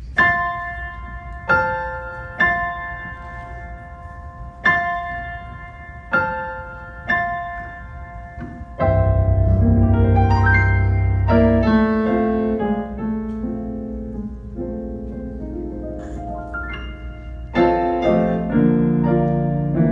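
Piano played on a Yamaha digital keyboard: first a slow run of single chords, each struck and left to ring, then from about nine seconds in a fuller, flowing passage with bass notes underneath.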